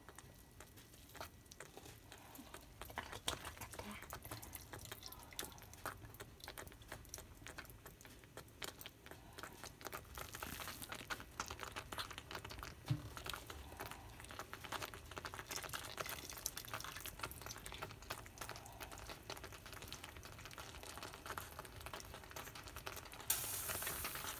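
Cooked spaghetti being lifted from its pot and dropped into a dish of creamy baked feta sauce: faint wet slaps and small utensil clicks. Near the end a louder wet swishing starts as the pasta is turned into the sauce.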